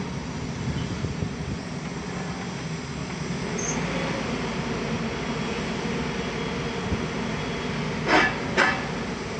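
Klemm KR805-3G drilling rig running steadily, a continuous mechanical drone of engine and hydraulics, with two short metallic screeches about eight seconds in.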